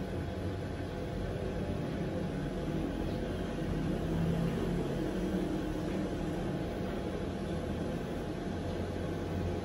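Steady low rumbling background noise with a hum, even throughout and with no distinct events.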